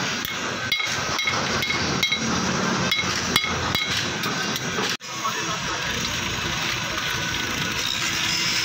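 Hammer striking metal, a run of about a dozen ringing metallic clanks, two or three a second, that stops abruptly about five seconds in; a steady background noise follows.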